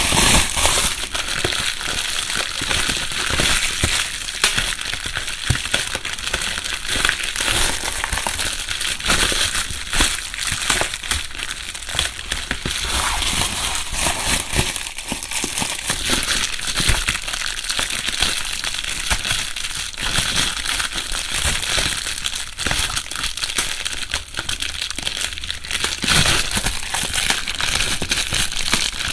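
Plastic bubble wrap being crumpled and rustled, with a continuous crinkling and many small crackles and pops.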